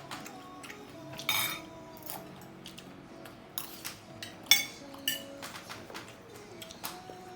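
Cutlery and dishes clinking during a meal: a few sharp clinks, the loudest a little past halfway, over soft background music with held notes.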